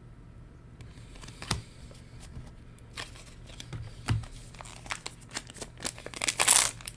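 Trading cards being handled and flipped, with light clicks and taps, then a booster pack's foil wrapper crinkling loudly for about half a second near the end.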